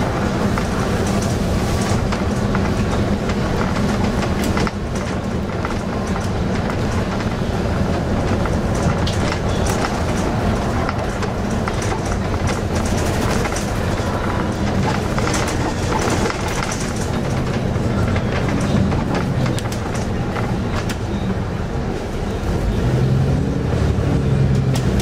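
Moving bus heard from inside the cabin: the diesel engine and road noise run steadily, with constant small rattles and clicks from the bodywork. The engine note grows louder near the end.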